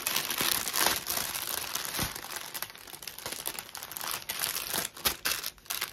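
Clear plastic bag around a bundle of diamond-painting drill packets crinkling as hands unwrap it: a continuous crackle with many sharp snaps.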